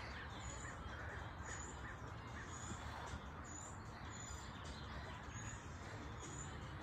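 A bird calling repeatedly with short, high calls about once a second, over a steady low background noise.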